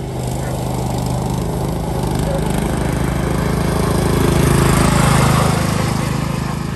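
Pulley-swapped riding lawn mower's engine running steadily as it drives up to and past the listener, growing louder to a peak about four to five seconds in, then falling back a little.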